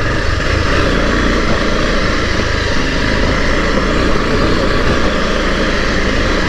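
Motorcycle engine running steadily and loud as the bike rides over a rough, rocky dirt track.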